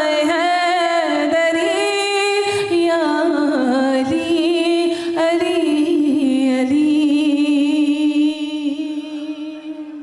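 A woman singing a manqabat, unaccompanied, in long held notes with ornamented turns. Her voice fades away over the last couple of seconds.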